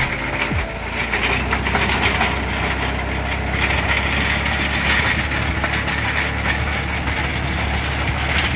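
Massey Ferguson tractor engine running steadily under load as its rotavator tills dry soil, with a constant gritty rushing from the spinning blades churning the earth.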